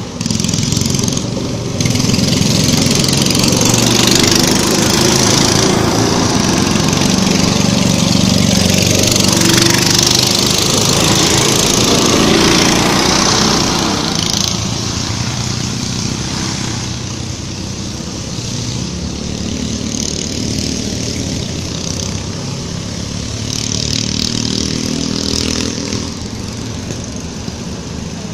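Small ATV engine running and revving, its pitch rising and falling, loudest through the first half and easing off somewhat after about fourteen seconds.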